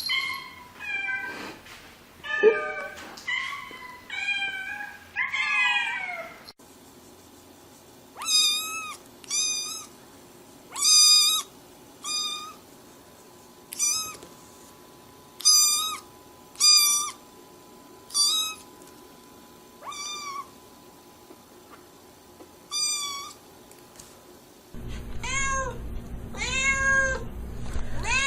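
A domestic cat meowing over and over, some twenty short meows about a second apart, each bending up and down in pitch. A steady low hum comes in near the end.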